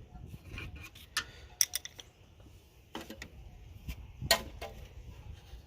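A few irregular, sharp clicks and light knocks from car body parts being handled and fitted, with a quick cluster of clicks a little over a second and a half in.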